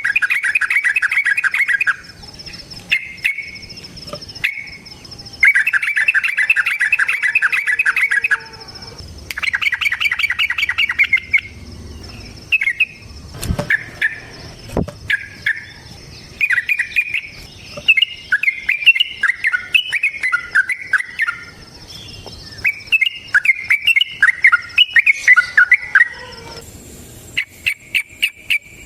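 Yellow-vented bulbuls (trucukan) singing: several bursts of fast, chattering trills, then a run of short, bubbly warbled phrases. A thin, steady high whine runs underneath, and two soft knocks come near the middle.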